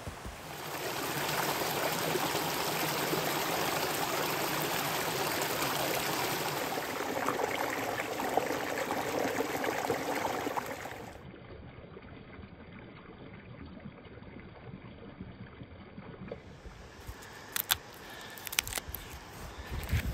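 Water running in a stream, a steady rushing that cuts off suddenly about eleven seconds in, leaving quiet with a few sharp clicks near the end.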